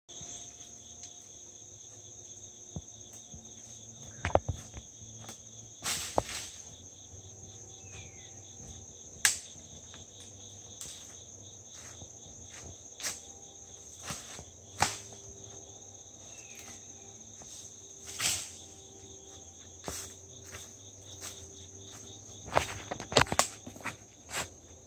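A steady high chorus of crickets, with irregular crunches of footsteps in dry leaf litter.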